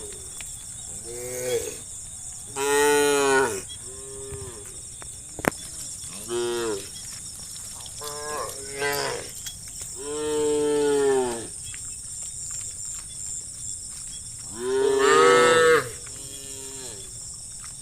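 Cattle mooing repeatedly, about eight calls of differing length and pitch from more than one animal, the longest about ten seconds in and the loudest near the end. A steady high-pitched buzz runs underneath.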